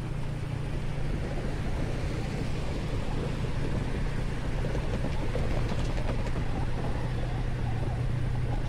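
TVS Apache RTR motorcycle engine running at a steady cruise, with wind and road noise rushing over the helmet-mounted microphone.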